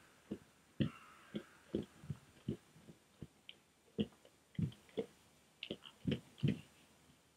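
Brown bear chewing food, its jaws working in short, irregular chomps about twice a second.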